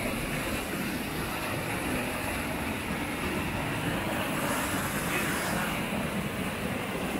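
Stream water rushing and splashing through a small cascade between granite rocks, a steady rushing noise that grows a little louder about four seconds in.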